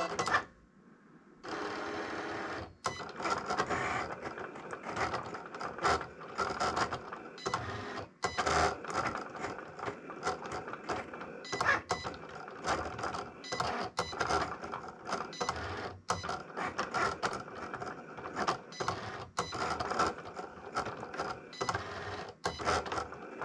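Cricut Explore Air 2 cutting machine cutting cardstock: its motors whir in short stop-start runs as the blade carriage and mat move. The cutting starts after about a second and a half of quiet.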